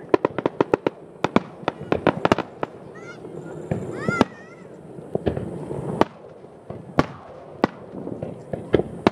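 Aerial fireworks bursting: a fast string of sharp bangs through the first two seconds or so, then single bangs about once a second.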